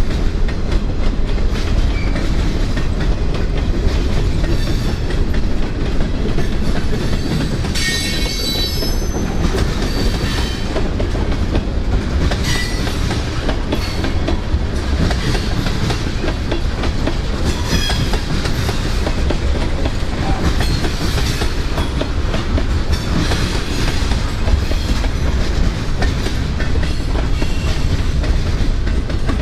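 Freight train's boxcars and tank cars rolling past, a steady deep rumble with the clickety-clack of wheels over rail joints. A brief high-pitched squeal from the cars' running gear about eight seconds in, with fainter ones later.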